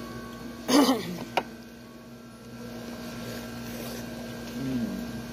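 Dining-table sounds: a brief voice about a second in, a couple of sharp clicks of a utensil or dish against a plate, and a steady low hum underneath.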